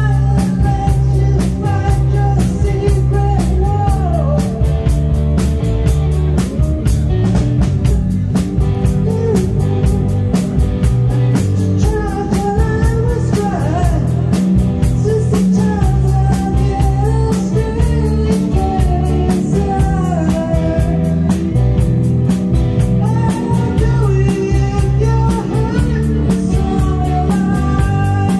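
Live rock band playing: drum kit keeping a steady beat, bass and electric guitar, and keyboards, with a woman singing the melody.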